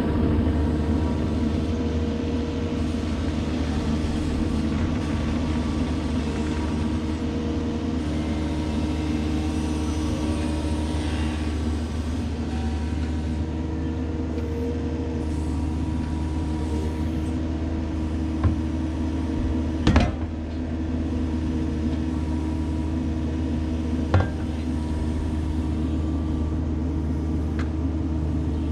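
Diesel engine of a compact excavation machine running steadily under work, with three sharp metallic knocks, the loudest about two-thirds of the way in.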